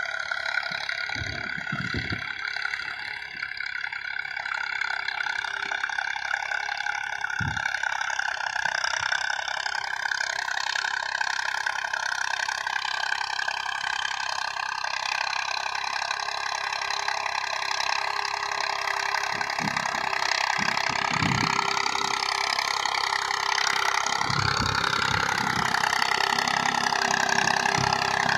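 1984 Massey Ferguson tractor's diesel engine running steadily under load as it pulls an 11-tine cultivator through dry tilled soil, growing louder toward the end as it comes closer. A few short low thumps.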